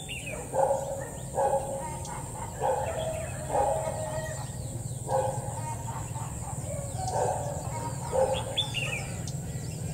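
Birds calling: a short, lower call repeats roughly once a second, with a few higher chirps over it, over a steady low hum.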